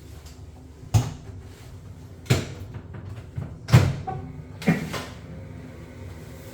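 Four sharp knocks and clunks a second or so apart, the third the loudest, as the casing of a Vaillant combi boiler is taken apart to get at its faulty display and control board.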